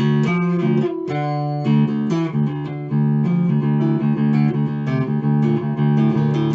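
Neck-through Chinese copy of a Rickenbacker electric bass (a 'Chickenbacker') being played: a run of quickly picked notes, each with a sharp attack, with a short break about three seconds in.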